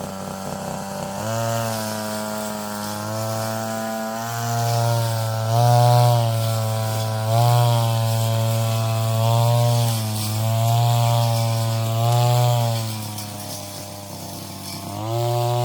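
Petrol brush cutter engine revving up about a second in, then surging and easing in pitch every couple of seconds as it works under load. It drops back toward idle near the end, then revs up again.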